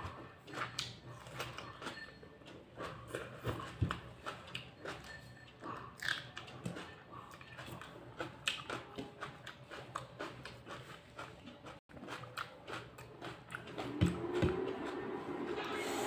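A person chewing raw vegetables (carrot, tomato, coriander leaves), with irregular wet mouth clicks and crunches. About two seconds before the end come two thumps and a drawn-out vocal sound.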